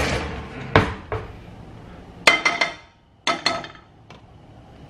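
Metal spoon clinking against a frying pan while butter is scooped from a tub into it: a couple of sharp clicks, then two quick clusters of ringing clinks about two seconds in and again a second later.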